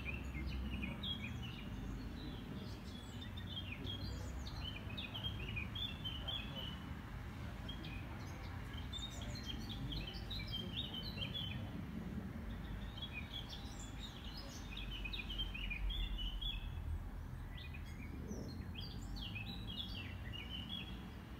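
Small songbirds chirping and twittering continuously, many short high notes in quick overlapping runs, over a steady low rumble.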